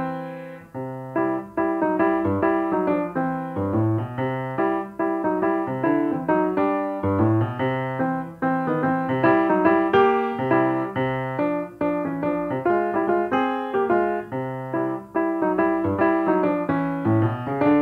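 Background piano music: a steady flow of struck notes over low bass notes that come every few seconds.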